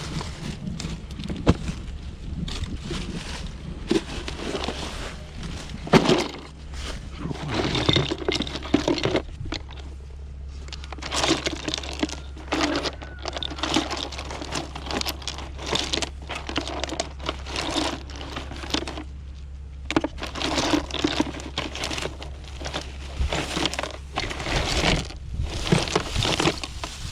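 Rummaging through a pile of discarded household items: irregular rustling, crinkling, rattling and clunks as objects are moved and handled, over a steady low hum.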